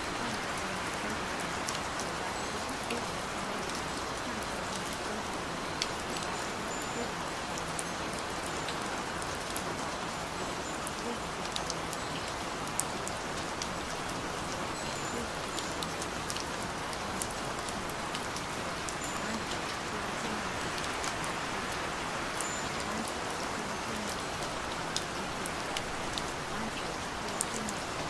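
Steady rain falling, with the patter of many individual drops.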